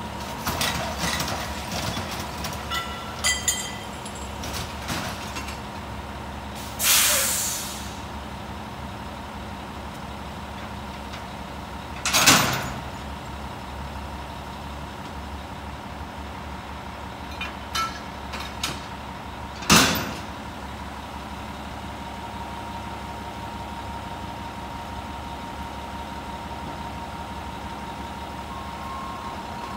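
Front-loader garbage truck running steadily with a constant high whine. There is a sharp air-brake hiss about a quarter of the way in, two loud bangs near the middle and about two-thirds through, and a few lighter clanks.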